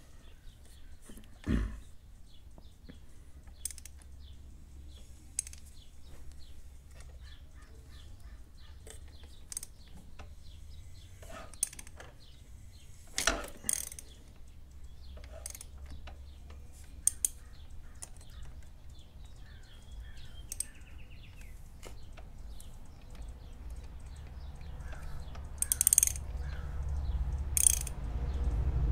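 Scattered clicks and metallic knocks of hand tools working on a motorcycle engine's open valve gear, with a few louder clanks, over a low hum that grows louder near the end.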